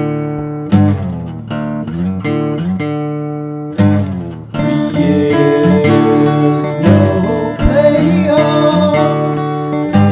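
Acoustic guitar playing a song: single chords strummed and left to ring for the first few seconds, then fuller, busier strumming from about halfway through.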